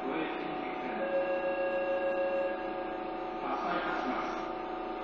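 Cabin noise inside a Tobu 30000 series electric train running through the subway tunnel: a steady hum of motors and wheels with several held tones, one whine standing out for about a second and a half near the middle. Muffled, as heard through a phone's voice recorder.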